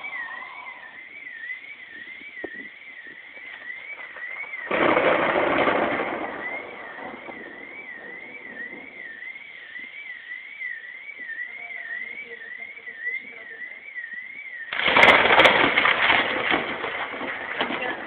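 Two claps of thunder, about five seconds in and near fifteen seconds, each breaking suddenly and rolling on for a second or two. Throughout, a steady alarm tone warbles up and down about three times a second.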